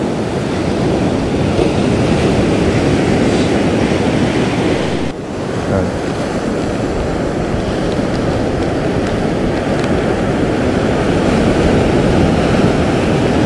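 Ocean surf washing and breaking in a steady rush, with wind buffeting the microphone.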